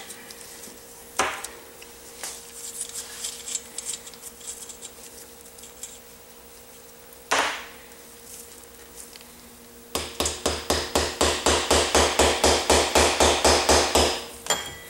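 Hammer taps on the aluminium cylinder head of a Honda CB450 engine as its cam-end covers are knocked loose. A couple of single knocks and some faint tool clinks come first, then near the end a fast run of strikes, about five a second for some four seconds.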